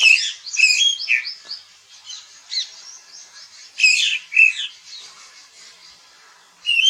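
Songbirds chirping and trilling in short high bursts, loudest at the start, about four seconds in and again near the end, over a faint steady background hiss.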